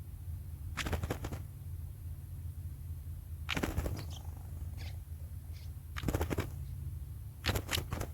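Four short bursts of rapid rustling clicks, a couple of seconds apart, over a steady low rumble.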